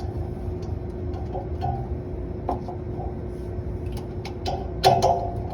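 Scattered small clicks and taps of refrigerant gauge hoses and fittings being handled, with a louder short clatter near the end, over a steady low hum and rumble.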